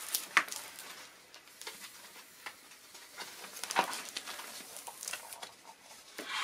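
Thin Duck brand plastic window-insulation film crinkling and rustling as a hand presses and smooths it onto double-sided tape around the window frame. The rustle is irregular, with a few sharper crackles, the loudest shortly after the start.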